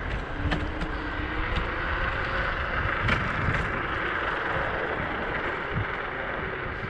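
Apollo Ghost electric scooter riding at about 15 mph on rough asphalt: steady wind noise on the microphone and tyre rumble, with a few light clicks.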